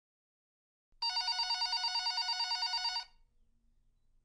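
Telephone bell ringing: one ring of about two seconds with a fast, trilling pulse, starting about a second in.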